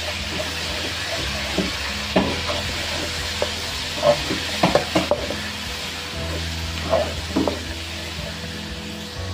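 Spice base of onion, shallots, chilli and curry leaves sizzling in oil in a non-stick wok. A plastic spatula stirs and scrapes it, knocking against the pan several times at irregular moments.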